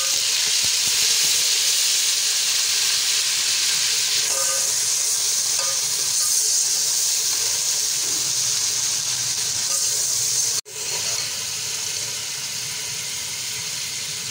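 Water just poured onto browned onions in hot oil in an aluminium pot, hissing and sizzling loudly as it hits the hot oil while a metal slotted spoon stirs it. The hiss cuts out for an instant near the end and carries on a little quieter.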